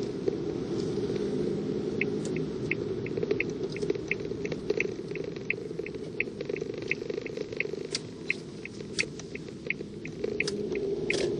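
A car's turn-signal indicator clicking steadily, about three clicks a second, as the car takes a turn at a junction, over the steady hum of the car's engine and tyres inside the cabin. The clicking starts about two seconds in, and the engine and road noise drop while the car slows for the corner, then pick up again near the end.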